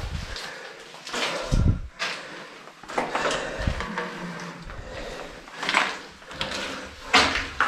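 Footsteps scuffing on a grit-strewn concrete floor in a small concrete room, irregular, with a couple of dull thuds in the first half.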